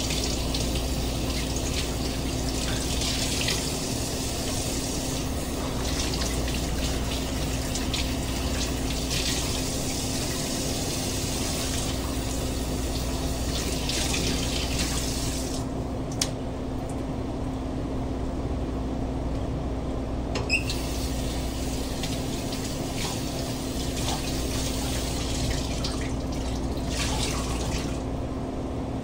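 Kitchen tap running into a sink while a whole sea bream is rinsed and scrubbed under the stream. The water sound drops away about halfway through and returns only in short spells later.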